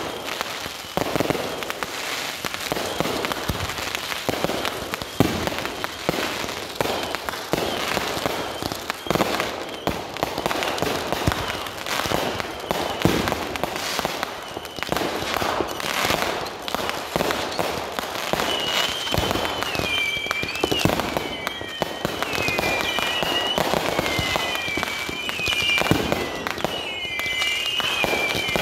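Consumer fireworks grand finale: a dense, continuous barrage of bangs and crackle from many shots firing at once. In the last third, high warbling whistles glide up and down over the bangs.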